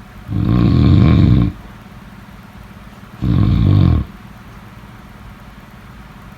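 Loud snoring: two snores about three seconds apart, the first a little over a second long, the second shorter.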